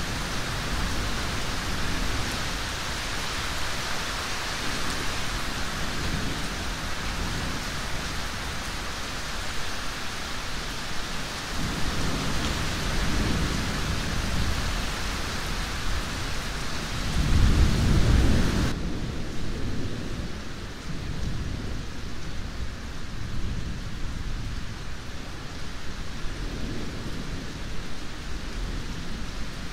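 Heavy rain with thunder, low rumbles rolling in about twelve seconds in and a louder one about seventeen seconds in. Shortly after the loud rumble the rain sound changes abruptly, its hiss cutting away to a softer, duller rain.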